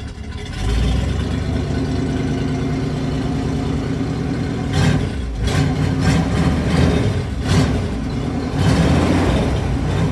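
1956 Facel Vega's V8 engine idling as it warms up from a cold start, heard from inside the car, with several short blips of the throttle in the second half.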